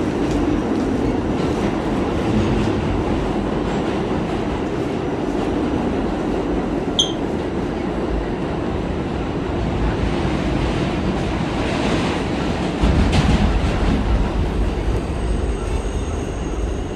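R46 subway train running on the rails, heard from inside the car: a steady rumble of wheels on track, with a brief high squeal about seven seconds in. The rumble grows louder and heavier from about thirteen seconds in.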